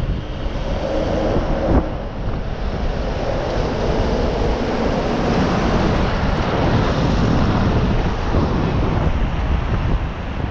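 Wind buffeting the microphone of a camera riding on a moving bicycle, a steady loud rush heavy in the low end. There is a short knock about two seconds in.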